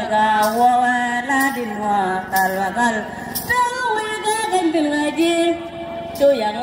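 Women singing a song, a melodic line with long held notes.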